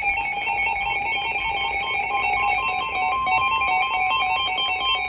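Background music: a run of short, changing notes, with one note held steady in the second half.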